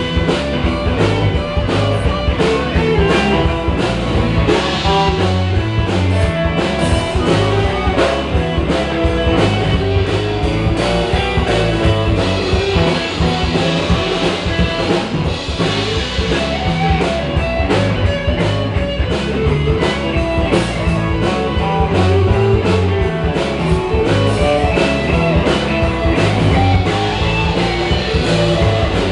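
Rock-and-roll band playing an instrumental break in a boogie song: guitar over drum kit and a steady, driving beat.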